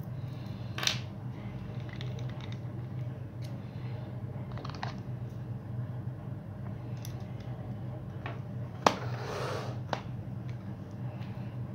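Small metal tool bits, sockets and a universal-joint coupling clicking and clattering as they are handled in a plastic bit-and-socket case, with a sharp click about nine seconds in followed by a brief rattle. A steady low hum runs underneath.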